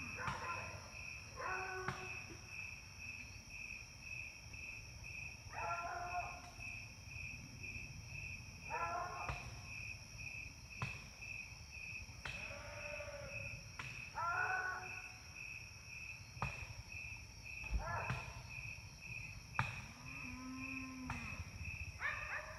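An animal barking at night, about eight short barks a few seconds apart, one near the end lower in pitch. Crickets chirp steadily behind it.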